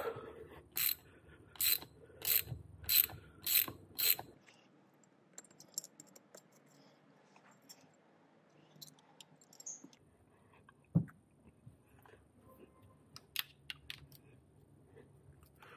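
Ratchet wrench clicking in about six short strokes over the first four seconds as the bolts on the e-motorcycle motor are wound out, then only faint handling clicks and a single knock about eleven seconds in.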